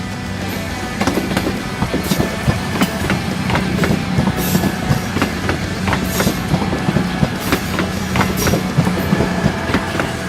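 A train running on the rails, its wheels clicking irregularly over rail joints above a steady low hum.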